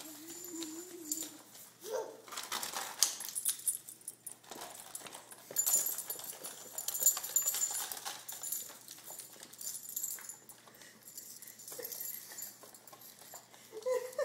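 Crinkling and rattling of an animal-cracker package being shaken and handled, in irregular bouts with sharp crackly peaks.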